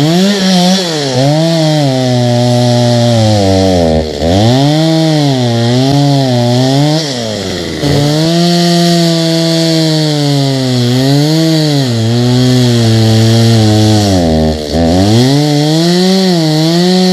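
Two-stroke chainsaw running at high revs while cutting down a tree, its pitch wavering under load. The pitch drops sharply three times and then revs back up.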